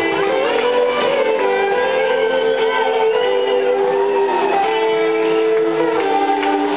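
Live rock band playing, led by electric guitar lines of held notes with slow bends.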